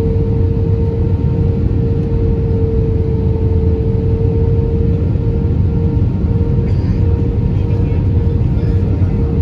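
Cabin noise of an Airbus A320 on descent, heard from a window seat over the wing: a steady roar of engines and airflow with a constant hum running through it.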